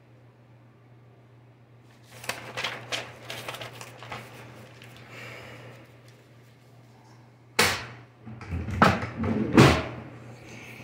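Phone being handled close to its microphone: irregular clicks and rubbing, then a louder run of knocks and scrapes near the end, over a steady low hum.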